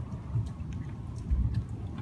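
Low, uneven rumble of a thunderstorm, with scattered ticks of rain.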